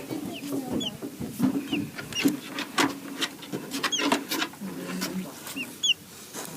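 Robin nestlings peeping in the nest: short, high chirps that fall in pitch, one or two at a time every second or so, with scattered clicks and rustles.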